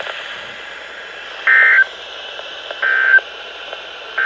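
Weather radio sending an Emergency Alert System SAME header over radio hiss: three identical short bursts of screechy digital data tones, about one and a half seconds apart, the third beginning near the end. The header marks the start of a new alert.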